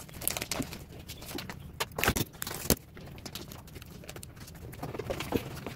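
Plastic sachet from a hair-relaxer kit crinkling and crackling as it is handled and opened, in quick irregular crackles, loudest about two seconds in.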